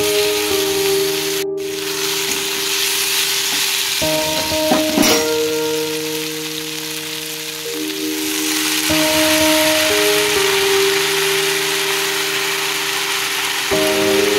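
Chopped okra, potato and gourd sizzling as they stir-fry in oil in a pan, with a steel spatula stirring and a few knocks against the pan about five seconds in. Background music with held notes plays throughout.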